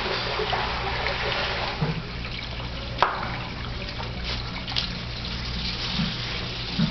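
Poodle puppy eating kibble from a plastic bowl: wet chewing and lapping with small irregular clicks, one sharper click about three seconds in, over a steady hiss.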